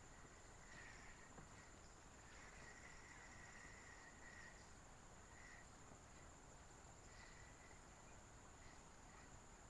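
Faint insects chirring: a steady high-pitched drone, with lower trills coming and going.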